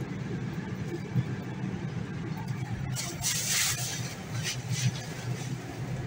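Steady low mechanical hum inside a moving SkyWheel observation-wheel gondola, with a short hiss about three seconds in and fainter ones near five seconds.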